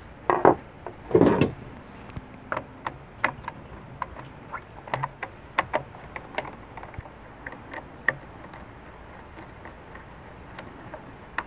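Reassembly of a Ryobi miter saw's yellow plastic handle housing: two louder knocks of parts being handled near the start, then scattered small clicks and ticks as a hand screwdriver turns screws into the plastic.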